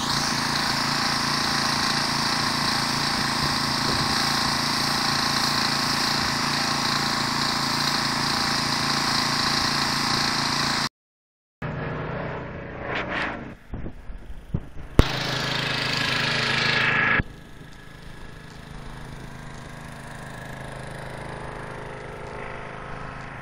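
Gas-engine pressure washer running steadily with the high-pressure spray hissing from the wand. It cuts off abruptly about eleven seconds in; afterwards the engine runs on more faintly, with some clatter and a brief louder rush of noise near the middle.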